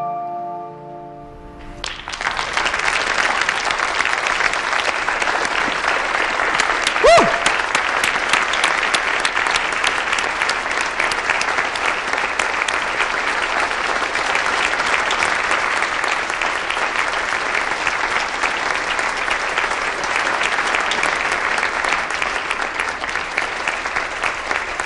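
The last notes of a piano song fade out, and about two seconds in a banquet audience breaks into sustained applause. A brief sliding tone rises out of the clapping about seven seconds in.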